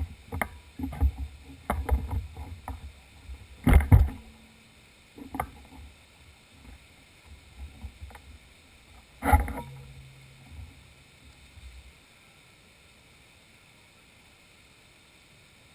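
Irregular knocks, thumps and rattles, with two harder impacts about four and nine seconds in. They stop at about twelve seconds, leaving a faint steady hiss.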